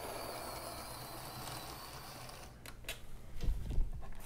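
Kit-assembled HO scale model steam locomotive running on track with a faint steady motor-and-wheel noise that stops about two and a half seconds in. Then a few clicks and a low thump as the locomotive is taken hold of by hand.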